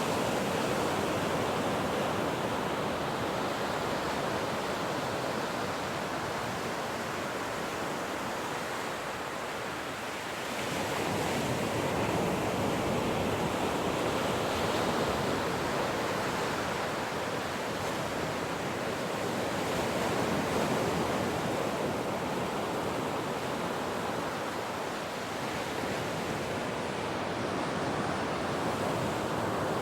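Ocean surf: waves breaking and washing in a continuous rush that swells and ebbs slowly, easing off about ten seconds in before the next wave builds.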